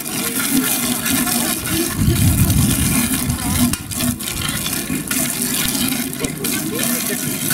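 A jet of water rushing from a fire-hose nozzle and spraying at a target board, a steady hiss that gets louder and lower for a second or so about two seconds in.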